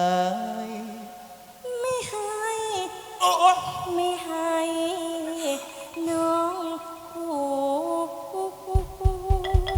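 Thai likay theatre music: a held, ornamented melody line with pitch glides, joined by a run of low drum beats about nine seconds in.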